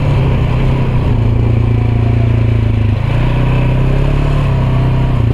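A motor engine running steadily with a low hum, its note shifting slightly about three seconds in.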